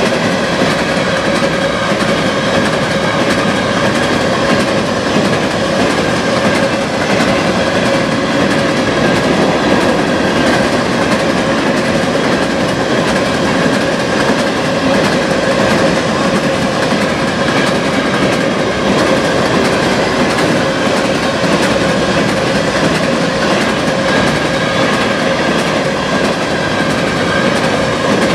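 Empty covered hopper cars of a potash freight train rolling past at high speed, with a steady loud rumble and clatter of wheels over the rails. Steady ringing tones run through the noise.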